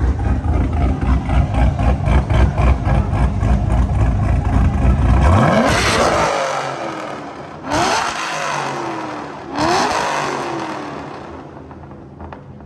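A Chevrolet Camaro SS's 6.2-litre V8 pulls hard at full throttle in a roll race. Its pitch climbs, with two quick upshifts of the automatic about eight and ten seconds in. After the second shift the engine note dies away.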